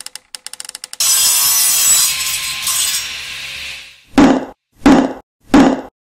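Intro sound effects: a quick run of clicks, then about three seconds of sawing wood, then three heavy thuds about two-thirds of a second apart.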